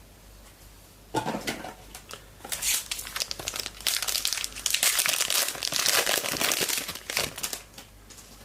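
A trading card pack wrapper being torn open and crumpled by hand, a crinkly crackling in bursts for about six seconds that starts about a second in.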